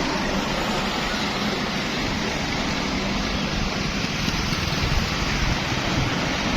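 Steady rush of passing road traffic: vehicle engine rumble and tyre noise.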